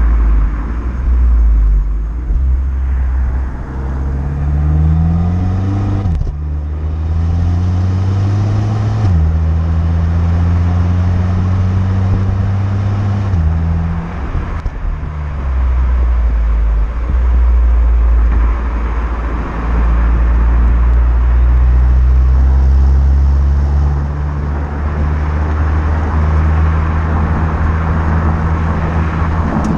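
Renault Mégane GT's 1.6-litre turbocharged four-cylinder engine and stock exhaust, in its Neutral drive mode, pulling under acceleration. The engine note climbs twice, dropping sharply at each upshift, and after a further drop it settles into a steady, lower cruising drone.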